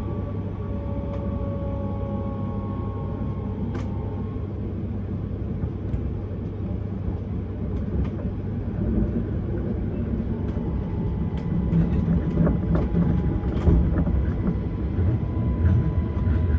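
Electric S-Bahn commuter train running, heard from inside the carriage: a steady rumble of wheels on rail with scattered clicks over joints. A thin electric motor whine fades out a few seconds in and comes back about ten seconds in, rising slightly as the rumble grows louder toward the end.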